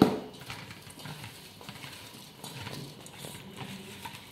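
Hands tossing sliced onions, carrots and green chillies dressed with vinegar and salt in a stainless steel bowl: soft, irregular rustles and squelches with light taps against the steel. A sharp knock comes right at the start.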